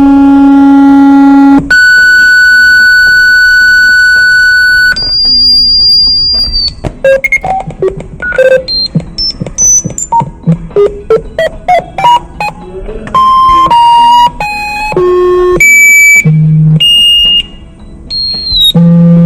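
Synthesized emergency-alert tones from a mock alarm. A low buzzing tone gives way, about two seconds in, to a higher steady tone for about three seconds and then a brief very high one. After that comes a fast run of short beeps jumping up and down in pitch, and finally a string of longer beeps at changing pitches.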